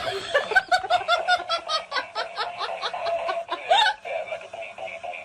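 A high-pitched laugh, a rapid run of short 'ha' bursts at about four or five a second, lasting about four seconds and ending on one louder burst.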